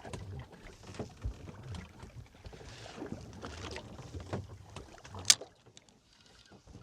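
Small fishing boat drifting at sea: water slapping the hull with uneven low knocks and scattered clicks, and one sharp loud click about five seconds in.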